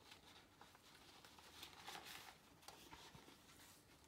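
Faint rustling of printed paper sheets being handled and rearranged, with a few small crinkles, loudest about two seconds in.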